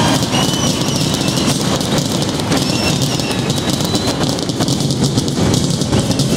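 Large stadium crowd roaring while fireworks crackle and pop overhead in a dense, continuous rattle, with a few thin high whistles gliding above the din.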